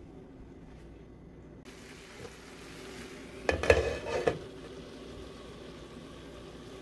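Vegetables sizzling softly in an oiled frying pan. About three and a half seconds in, a glass lid with a metal rim is set on the pan, with a quick run of clinks and knocks against the pan's edge.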